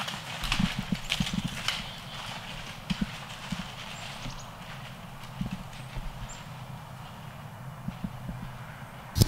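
White-tailed deer bounding away through dry leaf litter: a quick run of hoof-falls and crackling leaves that thins out and fades over the first few seconds, with a sudden loud knock at the very end.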